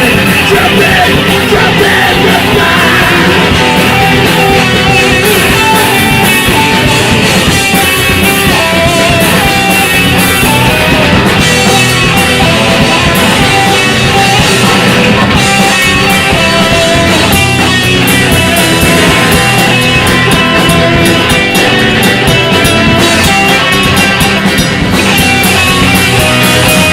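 Loud rock music from a band, with guitar, playing without a break.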